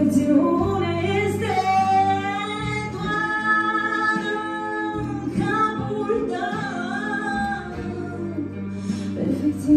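A woman singing live into a handheld microphone, amplified, with long held notes that slide in pitch, over a steady instrumental accompaniment.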